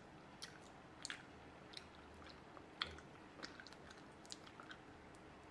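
Faint, scattered sticky clicks and smacks of raw honeycomb being eaten by hand, the waxy comb chewed and pressed between the fingers.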